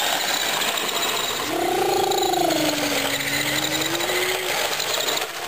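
Small electric motors of radio-controlled toy cars buzzing steadily as they drive. From about a second and a half in, a long drawn-out call with a slightly falling pitch lasts about three seconds.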